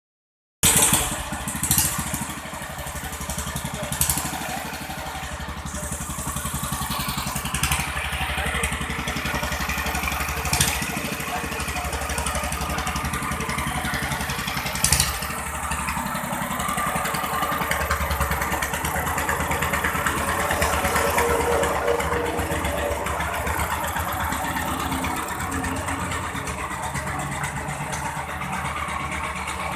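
Honda G200 single-cylinder engine running steadily, swelling a little in loudness partway through. A few sharp knocks cut through it, the loudest near the start and about 15 seconds in.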